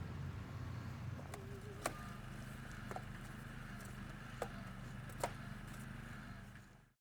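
Steady low hum of a vehicle's engine and road noise, with a few light clicks and knocks; it fades out near the end.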